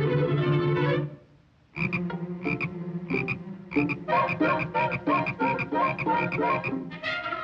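Cartoon soundtrack: orchestral music stops about a second in, and after a short gap comes a run of short, repeated calls that quicken to several a second toward the middle.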